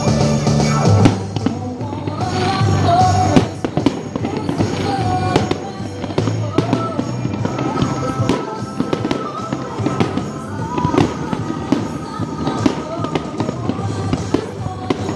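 Fireworks display: many sharp pops and crackles from bursting shells and crackling stars, with music playing loudly alongside.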